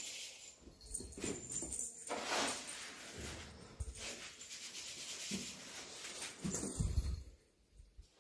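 Two long-haired cats playing on a bed: irregular rustling and scuffling on the bedsheet, with a couple of soft thumps about four and seven seconds in.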